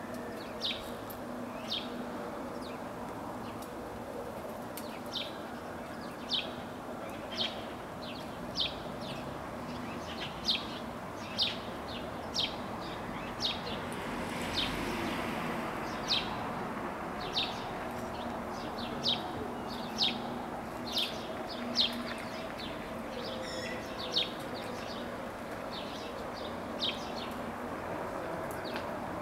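Rose-ringed parakeet calling: short, shrill notes repeated about once a second, over a steady low background hum.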